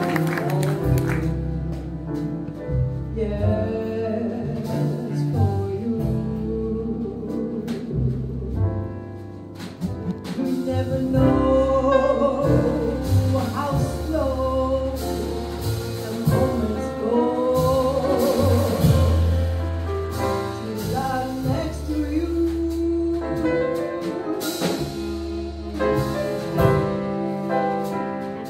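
A woman singing live with a small jazz band, accompanied by piano and double bass.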